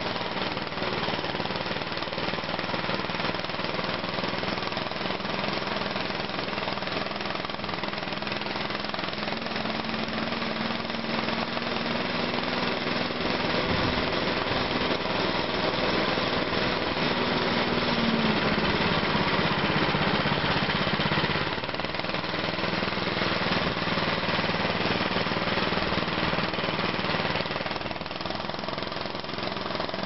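Small petrol engine of a motorized snow tug running steadily under load as it pulls over snow. Its pitch rises a little, then drops for a couple of seconds about two-thirds of the way through before picking up again.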